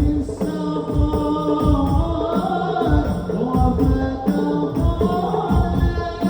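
Islamic sholawat music: melodic devotional singing over a steady beat of frame drums.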